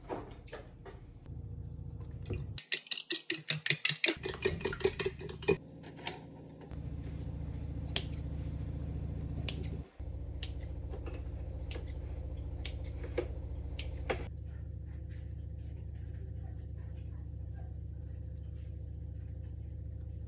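Kitchen work sounds: a quick run of sharp clinks, about four a second for some three seconds, like a utensil knocking a container, then a steady low hum with occasional light clicks and taps.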